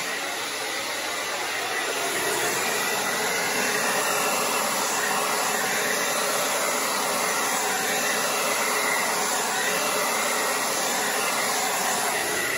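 Hair dryer running steadily, a continuous even rush of blown air.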